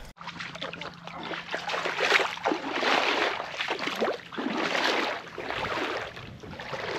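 Small waves lapping and washing over a shallow rocky shoreline, swelling and falling back every second or two.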